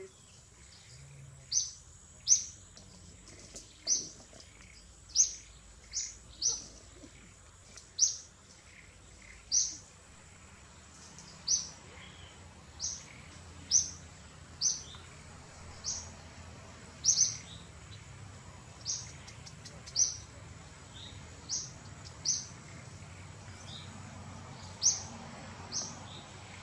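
A bird calling over and over: short high notes that drop in pitch, one every second or two, over a faint steady high-pitched hum.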